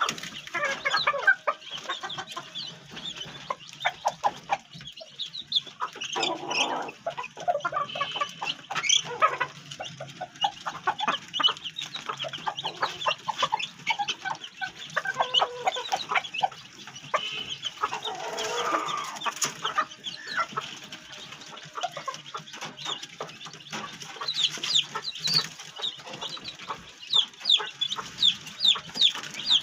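Chickens, a white Polish hen and a white rooster, clucking in a steady stream of short, sharp calls, with a quick run of calls near the end.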